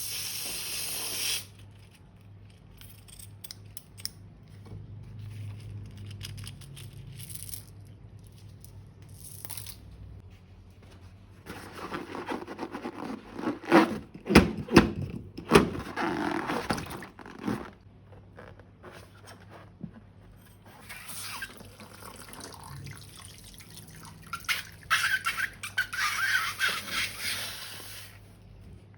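Wet, squelching liquid sounds of slime and its ingredients being squeezed out and mixed. The sounds come in two longer stretches of dense crackly noise, one about halfway through and one near the end.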